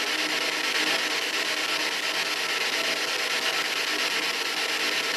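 Ghost box (spirit box) radio giving out steady hissing static with a fast, choppy flicker, in which the investigators listen for answering voices.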